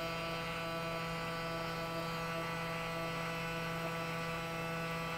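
Braun Series 9 shaver seated in its Clean & Charge cleaning station, buzzing steadily as the station runs an alcohol wash cycle: one even electric hum that holds the same pitch throughout.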